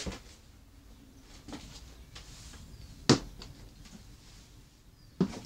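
Four short, separate knocks or taps about a second and a half apart, the loudest about three seconds in.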